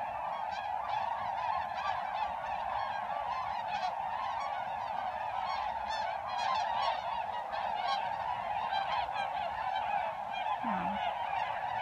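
A large flock of geese flying over, a dense, unbroken chorus of many overlapping honking calls.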